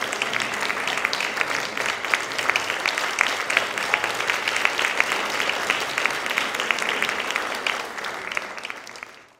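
Small audience applauding, dense steady hand-clapping that fades away near the end.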